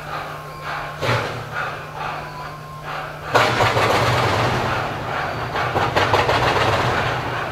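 SY-class 2-8-2 steam locomotive hauling loaded coal wagons up an incline, its exhaust beating at first in separate chuffs. About three and a half seconds in the driving wheels slip, and the exhaust turns suddenly into loud, rapid beats that run together.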